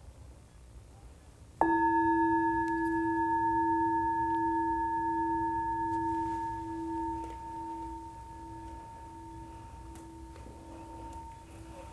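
A singing bowl struck once about a second and a half in, ringing with a low hum and higher overtones that fade slowly, the low tone wavering in a slow pulse as it dies away. It marks the close of the shavasana rest.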